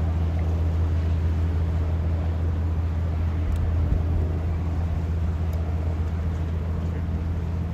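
A steady low engine hum that holds an even pitch and level throughout.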